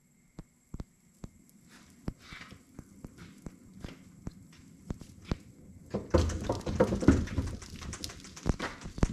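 Scattered light clicks and steps, then, about six seconds in, a loud rumbling and rattling as a wheeled cart carrying a sheet-metal generator housing is rolled along over the floor.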